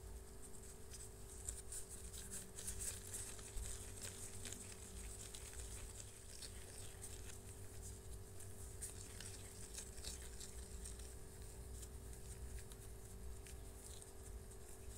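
Faint crackling and squishing of black-gloved hands pressing and rolling floury pempek dough into a ball, with many small irregular crackles, over a steady faint hum.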